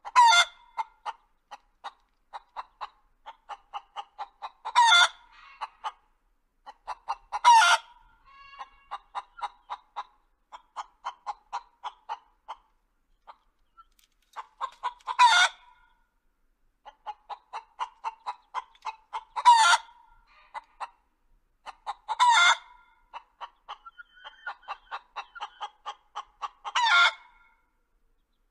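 Chicken clucking in runs of short, quick clucks. About seven times, every few seconds, a louder, drawn-out squawk breaks in.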